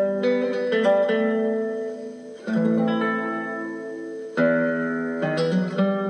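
Background music: a plucked guitar playing chords and melody notes, with fresh strummed chords about two and a half and four and a half seconds in.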